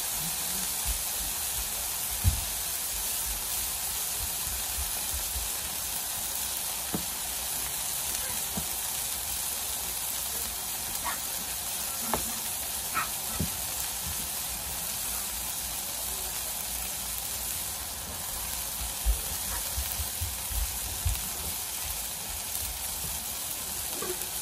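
Burger patties and butter sizzling steadily on a hot Blackstone flat-top griddle, with a few light knocks scattered through.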